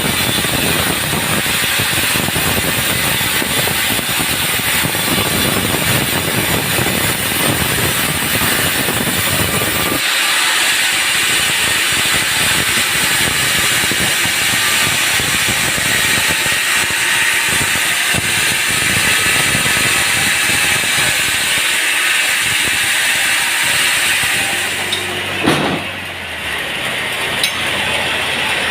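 Sawmill saw running and cutting through a large round teak log, a loud steady noise. It changes abruptly about ten seconds in, and near the end there is a sharp knock, after which the cut eases and a lower motor hum comes through.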